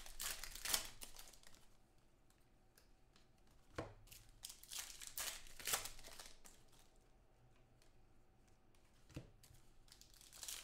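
Plastic trading-card pack wrappers being torn open and crinkled by hand, in several short bursts with quieter gaps between.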